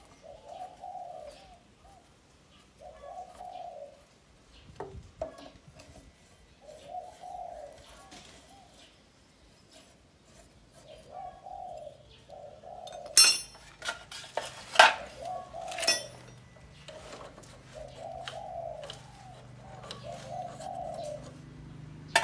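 A bird cooing over and over, each phrase about a second long with short gaps between. About two-thirds of the way through, a few sharp metallic clanks of a wrench working on a motorcycle's front fork bolts are the loudest sounds.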